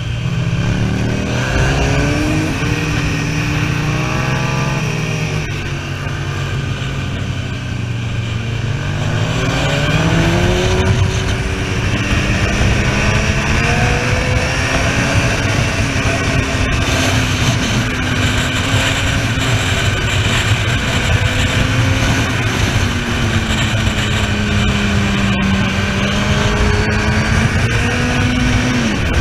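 Honda sport motorcycle engine heard from onboard, its pitch repeatedly rising and falling as the rider accelerates, shifts and rolls off through the bends. Wind noise rushes over the microphone throughout.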